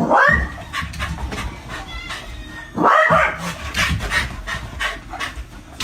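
A dog giving two short, rising yelps about three seconds apart, over a low rumble with scattered clicks.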